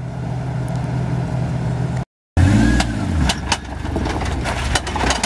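Jeep Wrangler JK's engine idling, then revving up and back down as it climbs onto a rock ledge, with sharp crunches and clicks of stones under the tires. The sound cuts out briefly about two seconds in.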